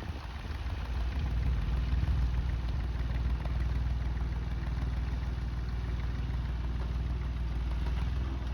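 Perkins P3 three-cylinder diesel in a converted Ford Ferguson 9N tractor running steadily at low revs while pulling a plough. The steady drone settles in about a second in.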